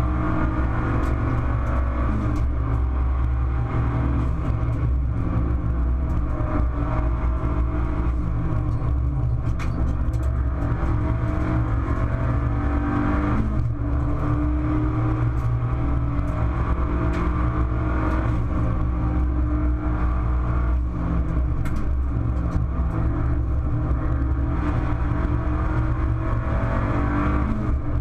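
Abarth 500 Assetto Corse race car's turbocharged 1.4-litre four-cylinder engine heard from inside the stripped cabin under hard driving, its pitch climbing and dropping back again and again through gear changes, over road and tyre noise.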